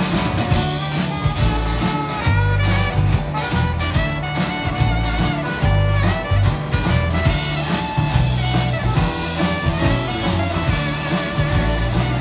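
A live band playing swing-style music, with saxophone and guitar over a moving bass line and a steady beat.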